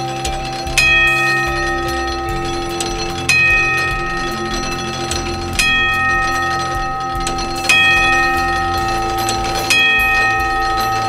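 Homemade barn clock's striking mechanism, built from old farm-machine gears, striking its bell to count the hour: about five strokes roughly two seconds apart, each left ringing on.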